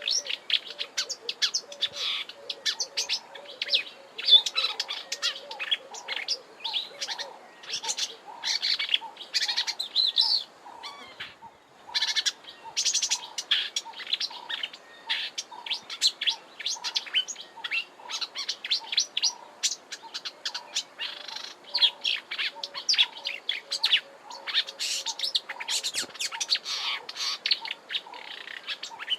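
Marsh warbler singing a fast, rambling warble of rapid repeated notes with mimicry mixed in, with a brief pause about eleven seconds in.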